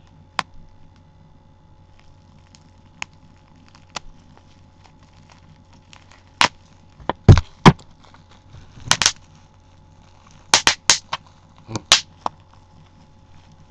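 Stubborn packaging being pried and torn open by hand: scattered sharp clicks and snaps, with the loudest cluster about seven seconds in and more around nine and ten to twelve seconds.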